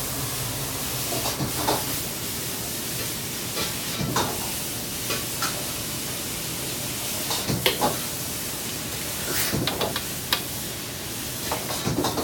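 Metal ladle stirring and knocking against an iron wok of simmering pork-and-vegetable sauce, over a steady hiss of wok burner and kitchen noise. A few sharp metal clinks stand out.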